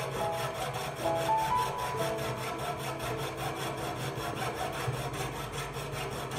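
Jeweler's piercing saw cutting silver sheet held on a wooden bench pin: the fine blade rasps through the metal in fast, even strokes.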